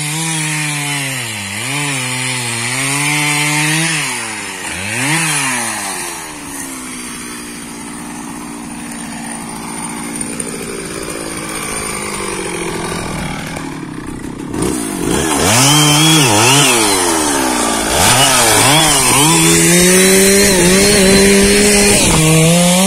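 Stihl MS 660 two-stroke chainsaw running at high revs, its pitch repeatedly dipping and rising again, quieter in the middle and louder over the last third.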